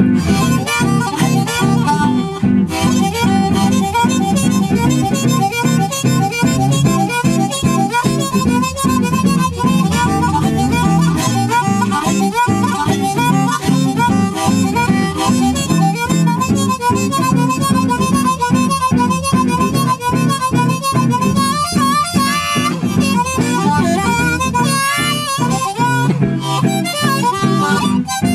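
Blues harmonica playing riffs over a guitar blues jam track, continuous with a steady beat.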